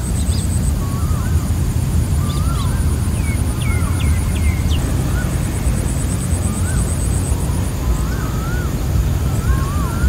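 Evening wetland birds and insects: insects trill in a high, fast-pulsing buzz that breaks off and resumes, and birds give short rising-and-falling chirps every second or so, with a quick series of falling whistled notes about four seconds in. A steady low rumble runs underneath and is the loudest part.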